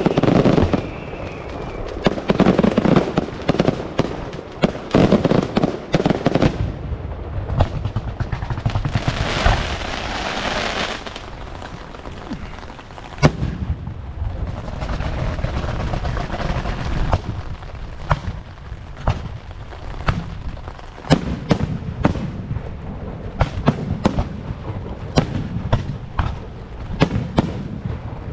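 Fireworks going off in a dense run of crackling bangs and booms, thickest in the first ten seconds or so, then a quicker string of separate sharp reports.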